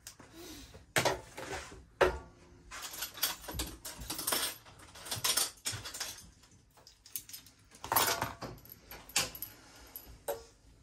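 Irregular clinking and clattering of small hard objects being handled, with many short sharp knocks and rattles at uneven intervals.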